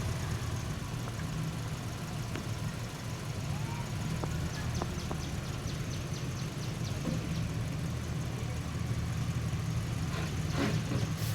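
An engine running steadily with a low rumble, with a run of faint, quick ticks in the middle.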